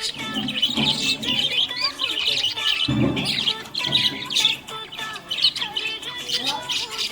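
Budgerigars chirping and warbling continuously in dense, rapid chatter, with a few low thumps mixed in, the strongest about three seconds in.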